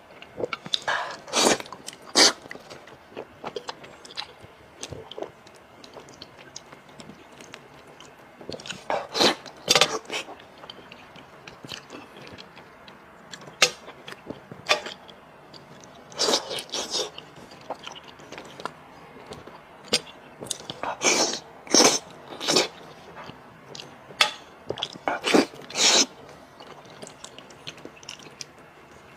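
Close-miked chewing and biting of braised pork trotters, with clusters of sharp wet chewing sounds every few seconds and quieter stretches between.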